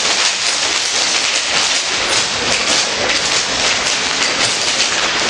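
Dozens of hard dance shoes striking a hard floor together in Irish step dancing: a dense, continuous clatter of taps.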